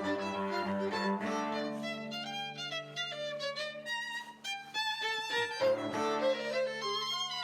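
A string ensemble playing live, with a violin melody of short notes moving over held lower string notes. It briefly thins out about four and a half seconds in.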